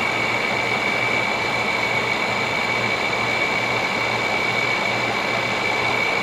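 Frigidaire 5,000 BTU window air conditioner running on cool: a steady rush of air with a steady high-pitched whine and a low hum that pulses about twice a second. The noise is the sign of a failing fan motor.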